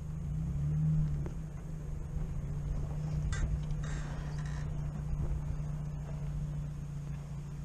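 UAZ-452 'Bukhanka' van's engine running steadily as the van drives slowly over snowy, rutted ground, picking up slightly about a second in.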